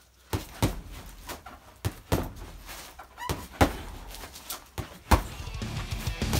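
Gloved punches landing on a 75-pound UFC heavy bag: about nine dull thuds at an uneven pace, in ones and quick pairs, the hardest shots a little past halfway and about five seconds in.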